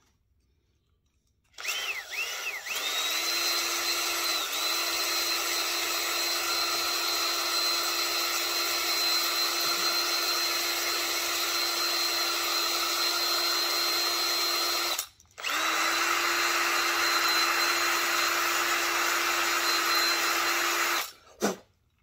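Battery drill running at a steady pitch as its bit bores into the plastic base of a die-cast toy car to widen the wheel groove. It starts a couple of seconds in, stops briefly about two-thirds of the way through, runs again and cuts off just before the end.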